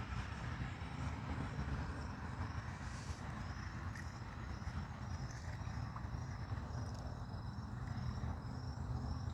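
Steady low rumble of background noise, with a faint high-pitched chirp repeating about twice a second from about three seconds in.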